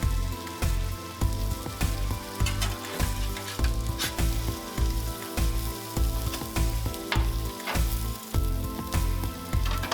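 Meat and vegetables sizzling on a flat top griddle, with scattered sharp clicks and scrapes of a metal spatula. Under it runs background music with a steady low beat about twice a second.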